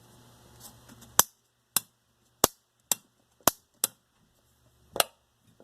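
A series of seven sharp, irregular clicks from a GFCI receptacle's reset and trip mechanism and a plug being pushed into and pulled from it; the receptacle is faulty and keeps tripping.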